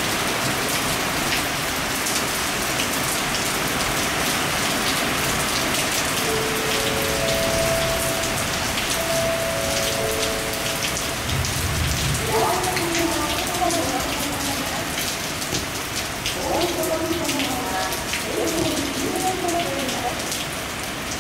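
Heavy rain from a thunderstorm falling steadily, with individual drops ticking close by. A short low rumble comes about halfway through.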